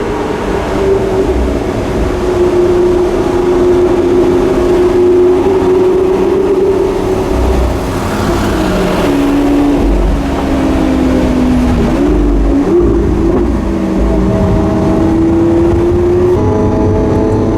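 Lamborghini Aventador S's V12 engine through its stock exhaust, heard from onboard the car, running at a steady note under way. Its pitch falls through the middle and steps up again near the end.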